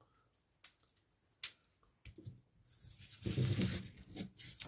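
Two sharp clicks, then uneven rustling and crinkling of plastic film as a multi-tool's knife blade cuts into the plastic wrapping on a whetstone.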